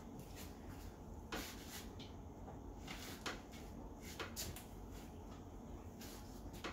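Quiet eating sounds: chewing, with a scattering of soft clicks and smacks from the mouth and a fork picking at food on a paper plate.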